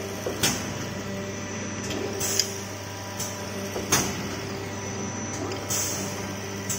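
CNC copper-aluminium tube cutting machine running: a steady hum with a sharp clack every one and a half to two seconds as it cycles, and a short hiss near the end.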